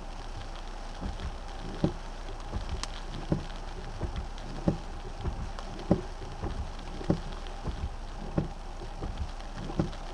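Rain falling on a stationary car, heard from inside the cabin, with a short dull thump every second or so.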